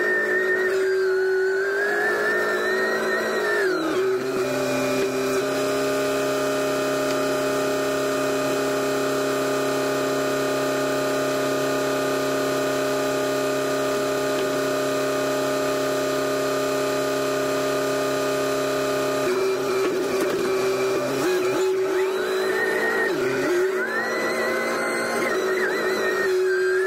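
SkyTrak telehandler's engine and hydraulics running under load, with a whine that rises and falls as the boom and forks move for the first few seconds and again near the end. In between, the engine holds a steady pitch.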